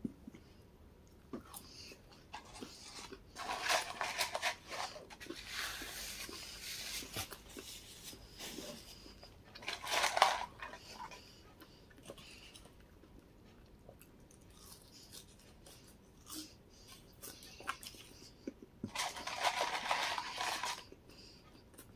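Chewing, broken by several bursts of paper rustling as a McDonald's paper fries carton is handled, the loudest about ten seconds in and another near the end.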